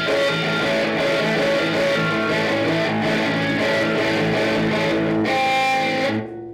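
Guitar-led intro theme music. Near the end it settles on a held chord that fades out.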